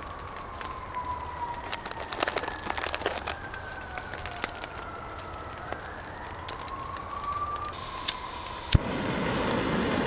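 Sausages pushed onto a metal roasting fork, with a few clicks and scrapes, while a distant siren wails faintly, its pitch slowly falling and rising. Near the end a click sets off a small gas burner's steady hiss.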